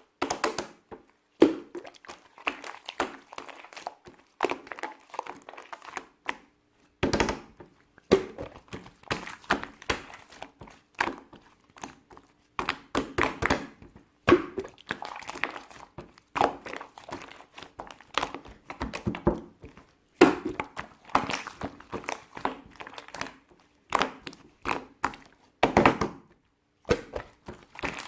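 Handling noise: dense, irregular clicks, taps and crinkles with brief pauses between clusters.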